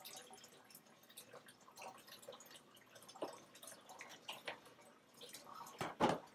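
Butter, onions and garlic sizzling faintly in a pan on the stove, with scattered small pops and crackles. A brief louder noise comes near the end.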